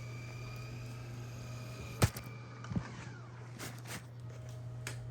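A steady low hum, with one sharp knock about two seconds in and a smaller thud just after it, then a few lighter clicks.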